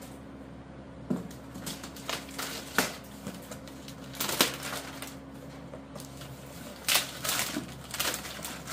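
Cardboard shipping box being handled and shifted about: irregular knocks, scrapes and crinkling, over a steady low hum.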